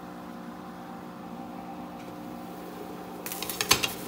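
Glass pot lid clattering and clinking against the rim of a stainless steel stockpot as it is lifted off, a quick cluster of knocks a little over three seconds in. Before that, a steady low hum comes from the kitchen while the pot boils under its lid.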